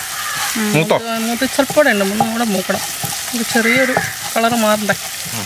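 Garlic-ginger paste and curry leaves sizzling in hot oil in a nonstick saucepan, stirred and scraped with a wooden spatula, with a voice talking over it.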